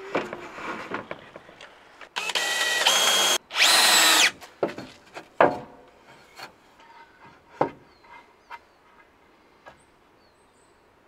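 Cordless drill running in two short bursts of about a second each, driving into the wooden frame, followed by a few sharp knocks of boards being handled and set in place.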